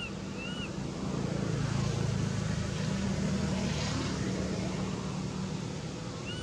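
Low, steady engine rumble of a vehicle, growing louder about a second in and holding there, with a brief high chirp right at the start.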